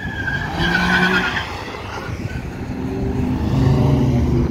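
A brief tire squeal about a second in, then a Dodge Challenger's engine running at low revs as it drives past, getting louder toward the end.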